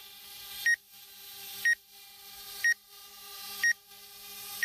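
Short, high electronic alert beep repeating about once a second from the DJI Spark's flight app or controller, over the steady hum of the DJI Spark drone in flight indoors without GPS, in ATTI mode.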